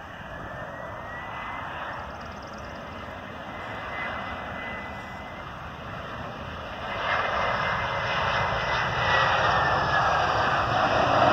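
Jet engines of a Boeing 737 freighter on final approach and flaring to land: a steady jet rumble with a thin whine, growing clearly louder about seven seconds in as the plane comes close, the whine dropping in pitch near the end.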